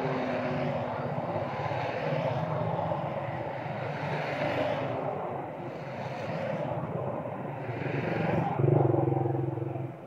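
A motor vehicle's engine running steadily, swelling and fading in level and loudest a little before the end.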